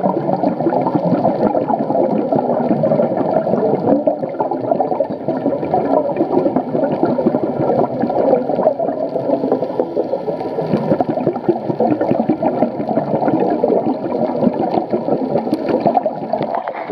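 Muffled underwater gurgling and rushing heard through an underwater camera housing, typical of a scuba diver's exhaled regulator bubbles. It runs on without a break.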